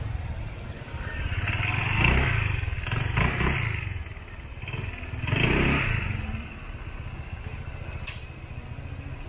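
Street traffic: a low engine rumble runs throughout, swelling louder three times in the first six seconds as motor vehicles pass or rev, then settling to a steady low hum.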